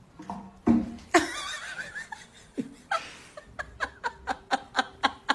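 A person laughing in a string of short, regular bursts, about three a second, through the second half, after a few louder sounds in the first two seconds.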